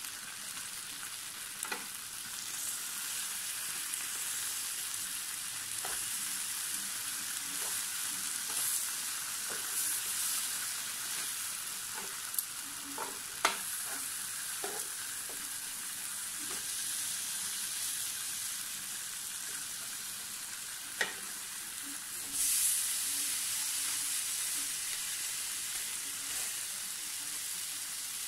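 Teriyaki-glazed pork ribs sizzling steadily on a hot electric grill plate. Metal tongs click against the plate several times about halfway through as the racks are turned, and the sizzle gets louder a little over twenty seconds in.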